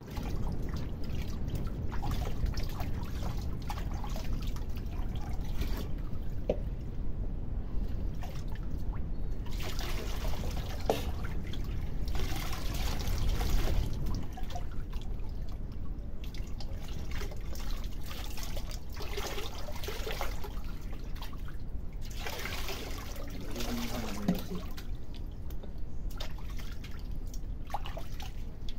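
Water sloshing and splashing in a steel basin as hands wash a small dog, with trickles and drips as water is scooped over its fur. The splashing grows louder in spells around the middle and again near the end.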